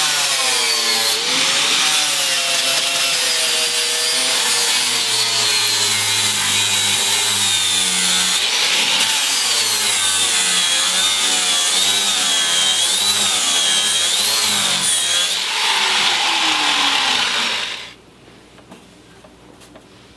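Angle grinder grinding the car's steel bodywork: a loud, continuous grinding with a high whine that wavers as the motor takes load. It cuts off about 18 seconds in.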